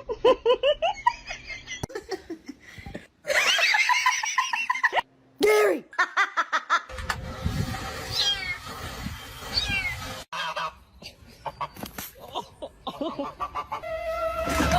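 Cats meowing in a string of short clips that break off suddenly from one to the next.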